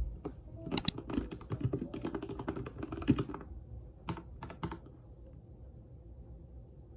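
Typing on a computer keyboard: a quick run of key clicks for about three and a half seconds, then a few scattered keystrokes, then only a faint steady room hum.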